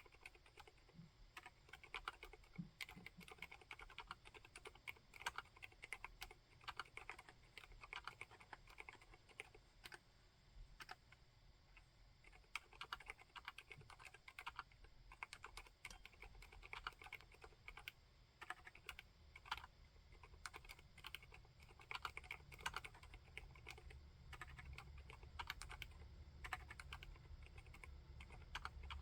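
Continuous irregular typing on an Akko Monsgeek M3 full-aluminium tenkeyless mechanical keyboard with Haimu Seasalt silent switches: soft, quiet keystrokes in quick succession.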